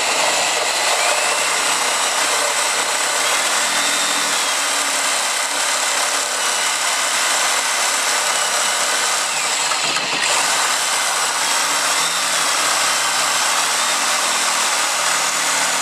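Corded electric reciprocating saw with a heavy-tooth blade cutting through a clamped piece of wood, running steadily throughout, with a brief dip about ten seconds in.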